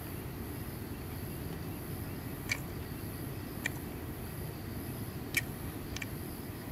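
Night forest ambience: a steady high-pitched chirring of insects such as crickets over a low background rumble, with four short, sharp clicks spread through the middle and later part.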